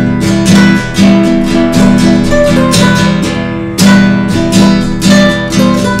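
Nylon-string classical guitar strummed in a steady rhythm, about two chords a second.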